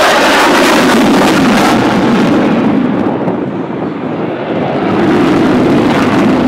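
F-16 fighter jet's single turbofan engine roaring loudly as it flies past. The roar eases slightly about three seconds in, then swells again.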